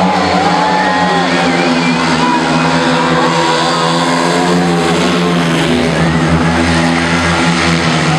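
Speedway motorcycles' single-cylinder methanol engines racing in a pack, their pitch rising and falling as they rev through the turns.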